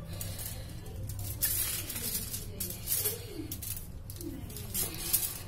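Wooden rolling pin pressed and rolled over soft chocolate biscuit dough on aluminium foil, the foil crinkling and rustling several times as the pin moves.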